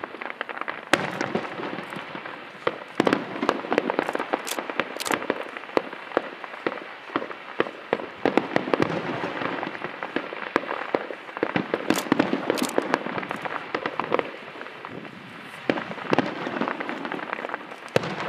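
Aerial fireworks going off in a dense, rapid crackle, with sharper bangs standing out here and there, a pair about two-thirds of the way in and another near the end.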